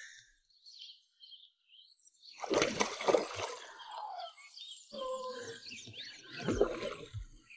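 A hooked carp thrashing at the water's surface as it is played on a long pole: irregular splashing and sloshing that starts about two and a half seconds in, eases briefly and then picks up again.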